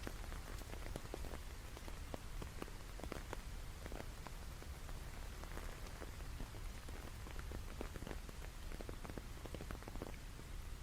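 Steady rain falling, with many separate drops pattering over an even hiss and a low rumble underneath.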